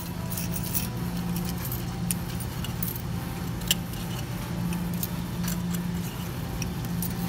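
Coins clinking in the metal payout tray of a laundromat change machine as a hand scoops them out, many small metallic clinks over a steady low machine hum.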